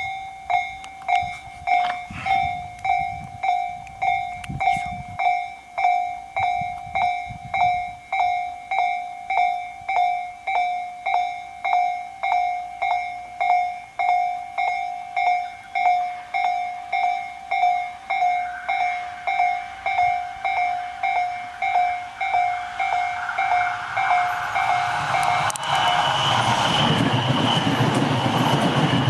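Japanese level-crossing warning bell ringing in even strikes, about one and a half a second. A Tobu Noda Line electric train approaches, growing louder from about two-thirds of the way in. Near the end the bell stops and the train runs past loudly.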